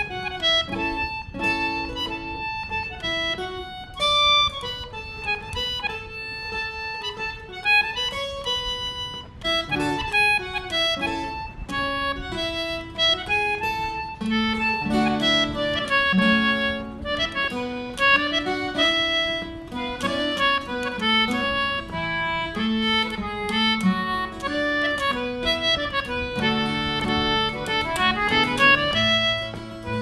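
Concertina and acoustic guitar playing a tune together, the concertina carrying the melody over the guitar accompaniment. Lower held notes fill in about halfway through.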